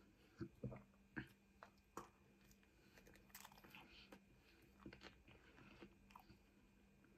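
Faint chewing of cheesy garlic bread topped with bolognese: soft, irregular clicks and mouth sounds.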